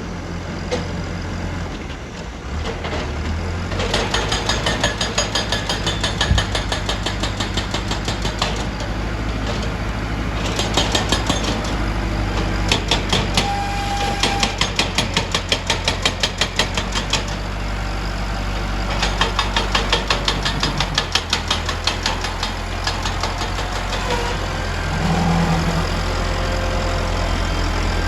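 Diesel engine of heavy earth-moving machinery running steadily at a low pitch, with a fast rattling clatter over it that comes and goes.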